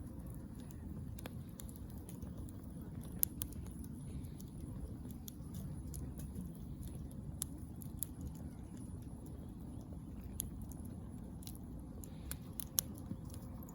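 Wood fire crackling in a fire pit: irregular sharp pops and snaps, a couple standing out louder, over a steady low rumble.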